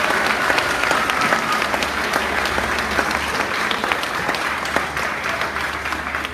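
Audience applauding, many hands clapping at once, beginning to die down near the end.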